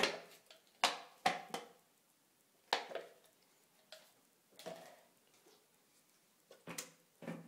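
About eight scattered knocks and clacks with quiet gaps between them: a plastic Schmand tube and a whisk handled against a plastic mixing bowl while the last of the Schmand is squeezed out into it.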